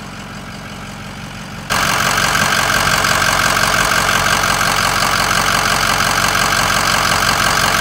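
Ford's engine idling steadily after being restarted. Nearly two seconds in it becomes much louder, heard up close under the open hood, with a fast, even ticking clatter, and it seems to be running okay.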